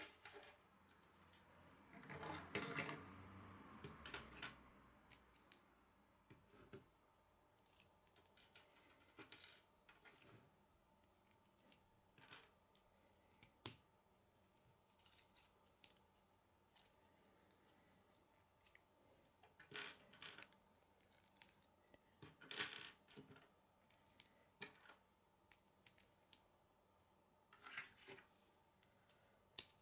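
Faint, scattered clicks of plastic K'nex rods and connectors being handled and snapped together, with a short rustle of handling early on and one sharper click about two-thirds of the way through.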